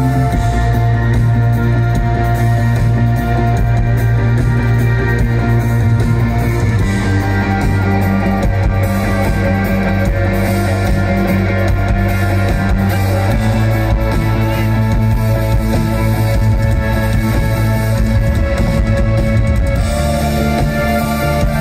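Live rock band playing an instrumental passage: held guitar and keyboard chords over a steady bass, the chord changing every six or seven seconds.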